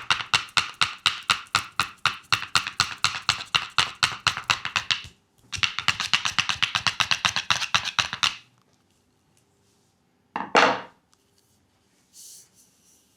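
Rapid percussive massage strikes on a leg, about eight a second, in two runs separated by a short pause. A single louder thump comes near the end.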